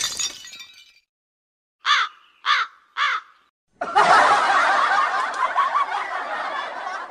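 Three short crow-like caws, each falling in pitch, about half a second apart, followed by a burst of crowd laughter lasting about three seconds that tapers off. Before them, the tail of a shattering crash fades out in the first second.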